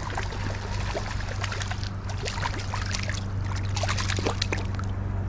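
Small hooked perch thrashing and splashing at the water's surface as it is reeled in to the bank, a run of quick, irregular splashes and clicks over a steady low hum.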